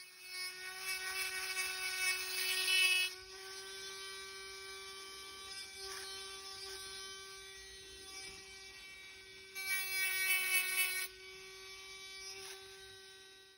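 Corded micromotor rotary handpiece spinning a burr bit with a steady high whine, grinding a groove along a crack in a hearing aid shell. The grinding is louder for the first three seconds and again briefly about ten seconds in.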